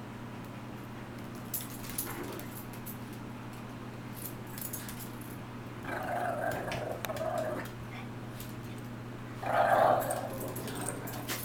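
Small dogs play-fighting, with two bouts of growling: one about six seconds in lasting over a second, and a louder, shorter one near the end. A steady low hum and scattered light clicks run underneath.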